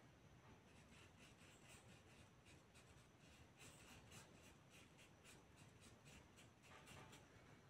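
Faint, soft scratching of a flat paintbrush stroking fabric paint onto cloth, a quick run of short strokes, about three a second, in the second half.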